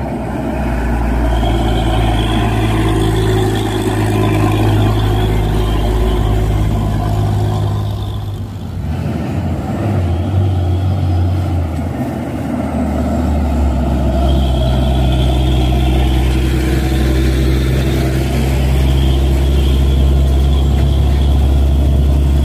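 Heavy diesel trucks running close by on the road, their engines passing one after another, with a brief lull about eight or nine seconds in before the next one builds up.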